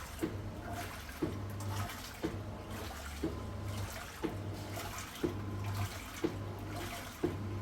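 Maytag top-loading agitator washing machine in its wash cycle, water sloshing in the tub while the motor hums in short strokes about once a second, with a click each time it changes direction. The machine is running normally now that its faulty cold-water inlet valve has been replaced.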